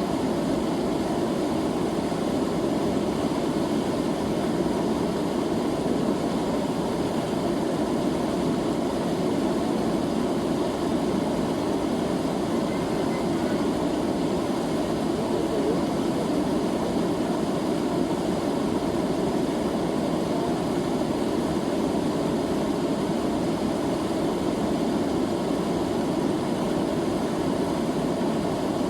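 River water flowing: a steady rushing noise, even in level, with most of its weight in the low-middle range.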